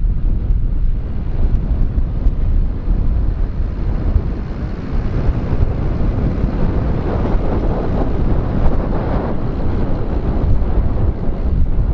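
Massey Ferguson tractor engine running under load while ploughing, with wind buffeting the microphone. It is louder for a few seconds past the middle, then eases off.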